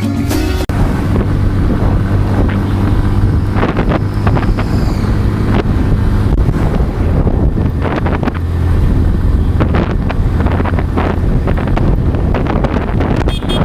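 Motorcycle engine running at a steady speed, with heavy wind buffeting on the microphone while riding.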